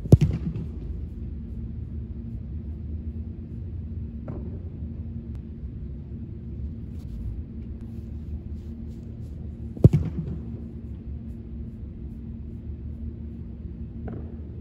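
A kicker's boot striking a football, twice, about ten seconds apart: each a sharp thump that echoes in a large indoor hall. A steady low hum runs underneath.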